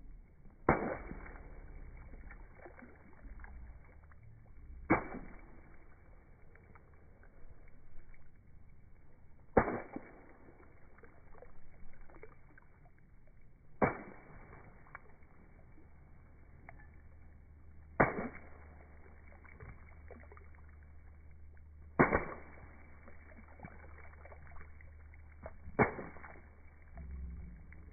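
A sneaker stamping into a shallow puddle on wet asphalt: seven sharp splashes, about four seconds apart.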